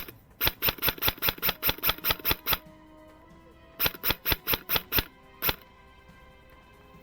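Background music: rapid, evenly spaced percussive hits in two runs, about four or five a second, with held notes sounding in the pause between them.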